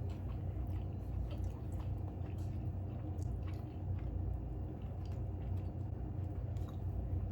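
Close-miked chewing of a mouthful of burger: soft, irregular wet clicks and smacks over a steady low hum.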